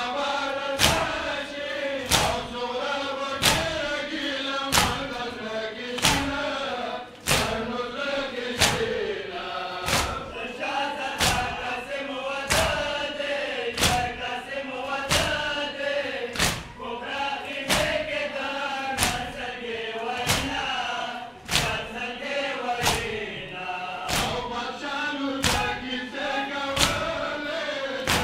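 Men's voices chanting a Pashto noha (Shia lament) together, with a crowd beating their chests (matam) in time. The chest slaps are sharp and come about every two-thirds of a second, in a steady rhythm under the chant.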